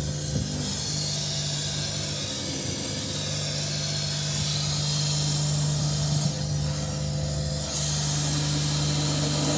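Water from a hose being poured over a car's rear door: a steady hiss of running and splashing water, over a steady low hum.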